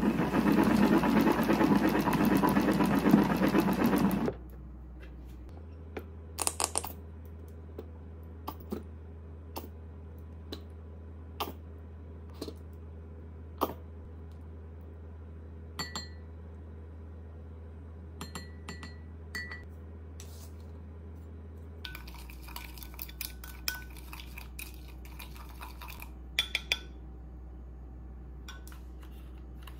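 A hand-spun salad spinner whirring loudly for about four seconds as it spins washed greens dry. After it stops come scattered clinks and taps of a metal spoon against a glass mug as mayonnaise is spooned in and stirred.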